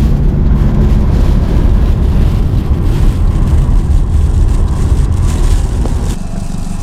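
Low, dense rumble of a car driving, heard from inside the cabin: engine and road noise. It drops in level about six seconds in.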